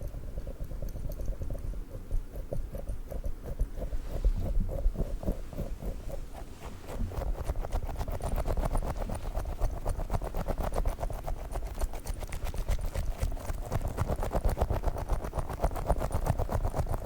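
Fingers tapping a squishy dog toy close to the microphone in quick, even taps, many a second, with no pause.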